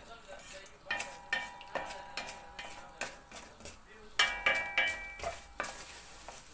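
Wooden spoon stirring and scraping vermicelli around a stainless steel pot as it toasts in hot oil, with a light sizzle. A couple of knocks of the spoon against the pot leave it ringing briefly, the loudest about four seconds in.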